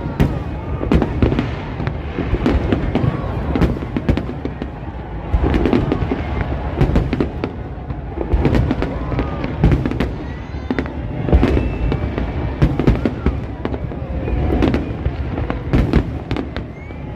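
Fireworks display: many bangs and crackling bursts following one another throughout.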